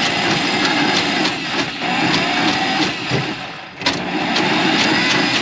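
A motor running steadily with a faint whine, dropping off briefly a little past three seconds in, then a sharp click and it runs on.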